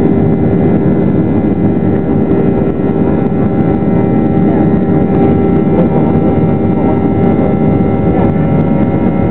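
Boeing 737-800's CFM56-7B turbofan engine running at high power during the take-off roll, heard from inside the cabin over the wing. A loud, steady rumble with a steady hum of fan tones on top; the pitch holds level.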